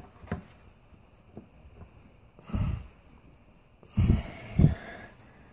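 A person breathing out hard in three short bursts, about two and a half, four and four and a half seconds in, with a few faint clicks of metal parts in between, as a starter held fast by its O-ring is tugged at.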